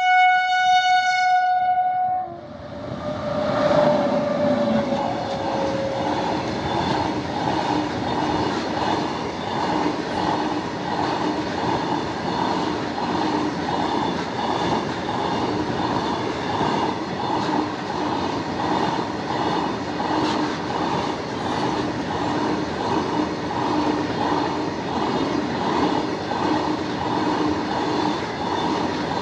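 Goods train locomotive horn blaring, ending about two seconds in, followed by a lower tone that slides down and fades by about six seconds. Then a goods train of petroleum tank wagons rolls past with a steady loud rumble and a regular clickety-clack of wheels over rail joints.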